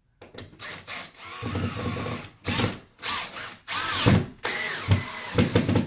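DeWalt 20-volt max brushless cordless drill driving a wood screw into a wall stud, in several short bursts, its motor whine rising and falling as the trigger is squeezed and eased.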